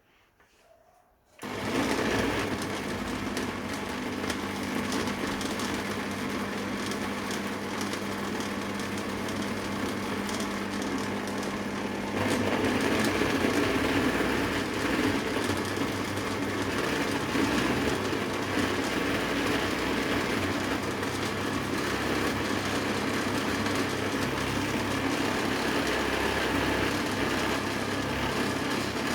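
Electric blender motor switching on about a second and a half in and running steadily. About twelve seconds in, its sound shifts and grows louder, then holds steady.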